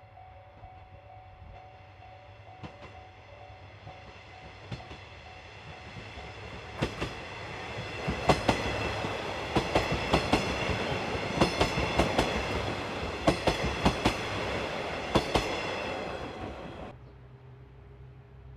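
KiHa 110 series diesel railcars approaching and passing close by, with a high whine from the drive. The wheels clack in quick pairs over the rail joints, growing louder until the cars are alongside. The sound cuts off suddenly near the end, leaving a fainter low hum.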